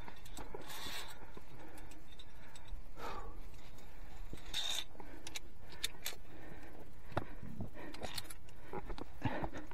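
Via ferrata karabiners clinking against each other and the steel cable, in many irregular short clicks, mixed with scuffs of hands and boots on limestone as a climber moves up.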